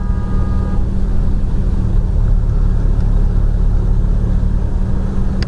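Car engine and road rumble, steady and loud, with a brief high tone of several pitches in the first second.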